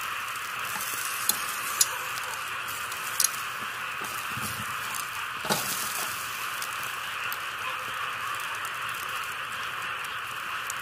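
Meat sizzling over hot charcoal in a wire grill basket: a steady hiss with a few sharp pops and crackles. Around the middle there is a short low knocking as the coals are stirred with a metal rod.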